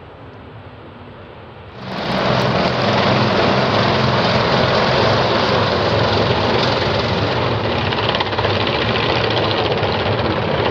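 Racing kart engine running loud and steady at an even pitch, starting abruptly about two seconds in after a quieter stretch.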